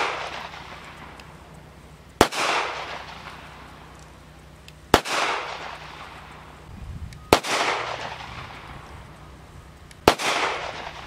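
Four single pistol shots about two and a half seconds apart, each followed by a rolling echo: an all-steel blowback CZ 83 firing .380 ACP first, then a CZ 82 firing 9x18 Makarov for the last two.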